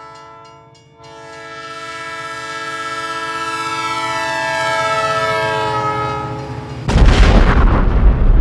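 Train horn blowing, a short blast and then a long chord that swells louder and drops slightly in pitch. It is cut off about seven seconds in by a loud crash, the loudest sound here.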